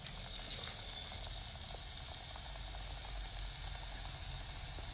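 Gram-flour-battered cauliflower pieces deep-frying in hot oil: a steady high sizzling hiss with a few faint pops.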